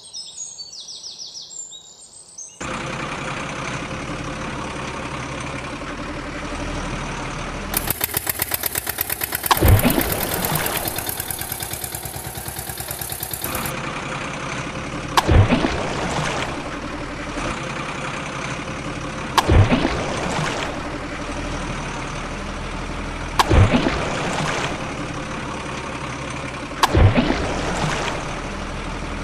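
Truck engine sound effect running steadily, with a fast rattling stretch about eight seconds in that lasts some six seconds, and a louder swell recurring about every four seconds.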